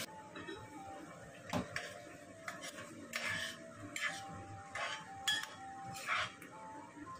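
Metal ladle scraping and knocking inside a ceramic clay pot of stew as it is stirred, about six short strokes. Soft background music plays under it.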